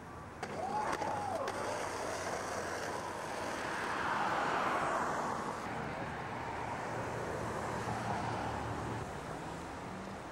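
Street traffic: a car going by, its tyre and engine noise swelling to a peak about four to five seconds in and then slowly fading.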